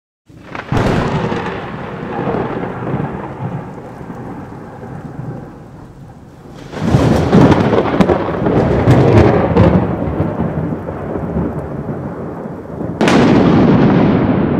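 Thunder sound effect: three thunderclaps, each a sudden crack followed by a long rolling rumble. The first strikes under a second in, the second and loudest about halfway through with crackling, and the third near the end.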